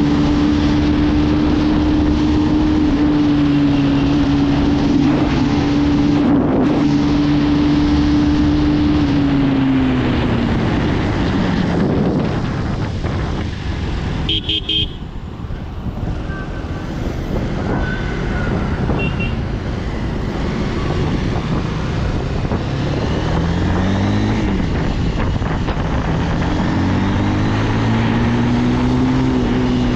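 Motorcycle engine running at a steady pitch, dropping as the bike slows about a third of the way in, then climbing through the gears near the end, over constant road and wind noise. A short horn toot about halfway through.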